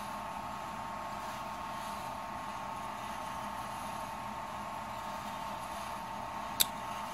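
Behmor 1600 Plus drum coffee roaster running its cooling cycle: a steady fan and drum-motor hum with a faint high tone. About six and a half seconds in, a single sharp crack: a bean still popping in second crack.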